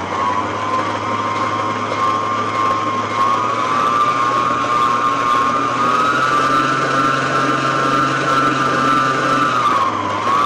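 Electric stand mixer running, its beater mixing thick cake batter until smooth: a steady motor whine that rises slightly in pitch and dips briefly near the end.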